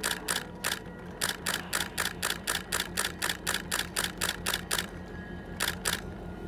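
Camera shutter firing in rapid bursts, about four clicks a second. There is a short pause about a second in, the clicks stop a little before five seconds, and two more follow near the end.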